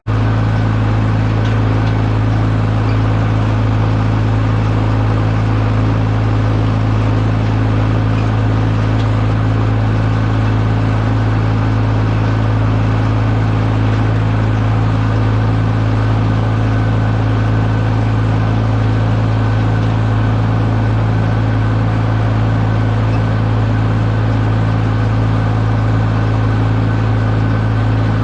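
Tractor engine running steadily at constant speed, a loud, even low drone with no change in pitch.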